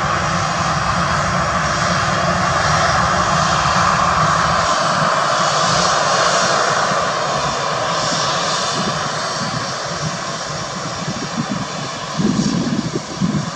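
Airbus A320 jet engines running at taxi power as the airliner taxis past: a steady jet whine with a thin high tone running through it. The sound eases off slightly as the aircraft turns away, and a deeper uneven rumble comes in near the end.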